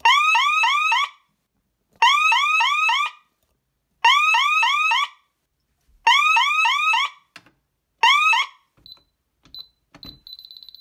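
Alarm siren sounding a fire alarm from a DSC PC1515 security panel, set off by the smoke detector's test button: loud bursts about a second long, one every two seconds, each a quick warble of four chirps. It stops near the end as the disarm code is keyed in, and the DSC keypad gives a few short high beeps, then a faster run of beeps.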